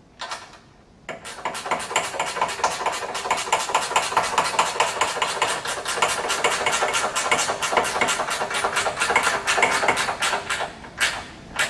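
Ratchet wrench running nuts down onto threaded mounting studs, a fast, continuous run of clicks that starts about a second in and stops shortly before the end, followed by a couple of single knocks.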